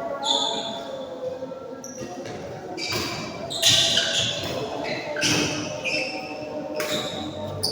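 Badminton rally: sharp racket strikes on the shuttlecock, about four of them a second or so apart, over background voices in a sports hall.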